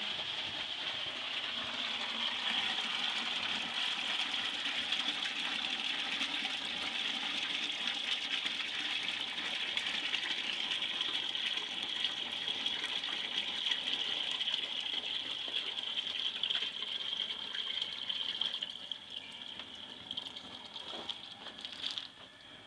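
Near-boiling water pouring in a steady stream from a boiler's spigot into a plastic 5-gallon bucket, growing quieter near the end.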